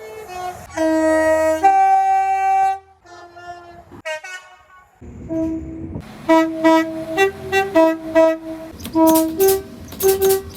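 Two-tone train horn. It gives a long low blast that steps up to a higher note, then a quick run of short toots switching back and forth between the two notes, over a low rumble.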